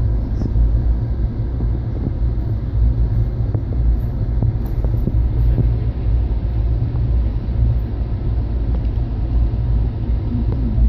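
Steady low rumble of a moving vehicle heard from inside it, with a few faint clicks about four to five seconds in.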